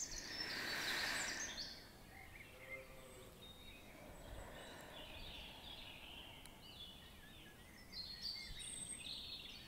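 Faint birdsong: scattered chirps and short warbling phrases in a background nature soundscape, heavier near the end, with a soft hiss in the first second and a half.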